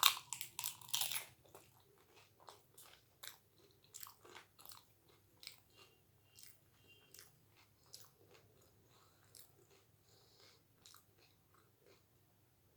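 Close-up crunching of a crisp fuchka shell being bitten, loudest in the first second and a half, followed by steady chewing with softer crunches about two or three times a second that grow fainter toward the end.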